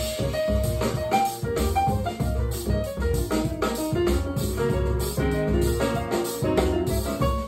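Recorded music with a drum beat and melodic pitched instruments, played back through a pair of Celef LS8 bookshelf speakers and picked up in the room.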